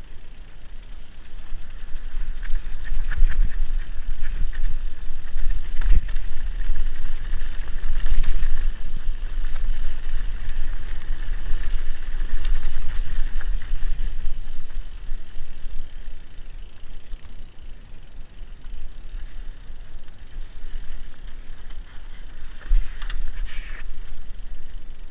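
Mountain bike riding a bumpy dirt trail, heard from a camera mounted on the bike: knobby tyres rolling over dirt with a steady low rumble, and a few sharp knocks and rattles as the bike hits bumps. Louder through the first half, easing off after about 15 seconds.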